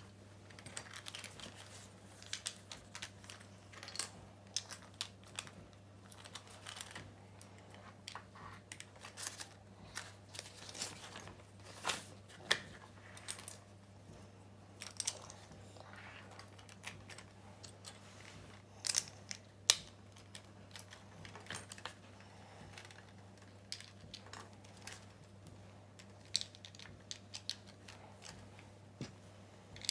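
Plastic Lego bricks being handled and pressed together on a wooden table: irregular small clicks and taps, a few sharper snaps among them.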